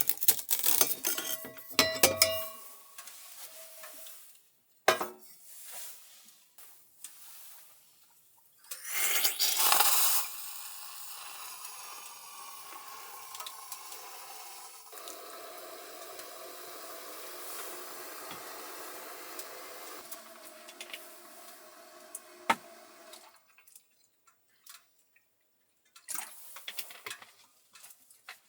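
Cooking sounds: metal pots and utensils clinking and clattering, then a short loud rush about a third of the way in, followed by a steady hiss for about thirteen seconds that stops fairly suddenly.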